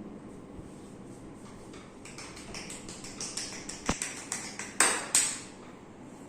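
Hands slapping and tapping on skin during a massage: a run of quick percussive strikes, about five a second, growing louder, with a sharp click among them and two loudest smacks near the end.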